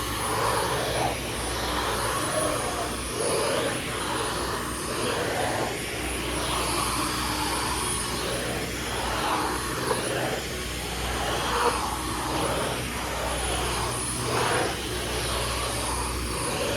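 Dyson cordless vacuum cleaner running: a steady rush of air with a high, thin motor whine held at one pitch.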